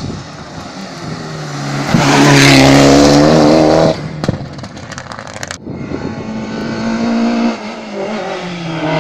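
Rally cars' engines at high revs on a hillclimb: one car passes close at full throttle, loudest about two to four seconds in, and cuts off abruptly; then another car's engine builds louder near the end.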